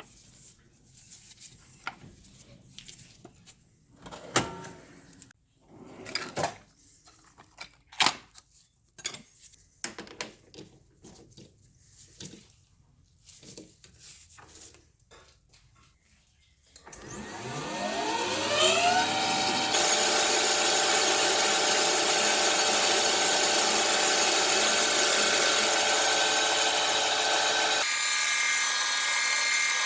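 Scattered clicks and knocks of tools being handled, then about halfway through an electric power tool spins up with a rising whine and runs steadily at speed, with a high hiss. Near the end its tone changes and the low part of the sound drops away.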